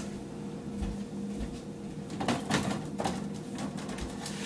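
Light handling noises in a kitchen: a few short clicks and knocks, with dull low thumps, over a steady low hum.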